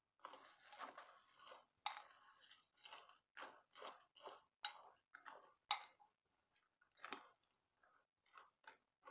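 Crunchy cinnamon cereal crunching: a short rustle, then a run of short crisp crunches at an irregular pace of about two a second.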